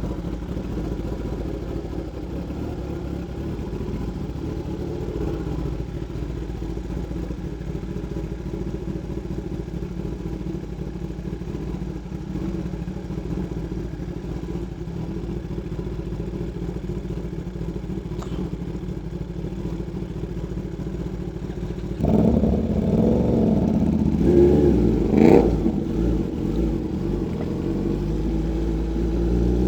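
Sport motorcycle engine idling steadily. About 22 s in it gets louder, with a couple of sharp throttle blips, and near the end the revs begin to rise as it pulls away.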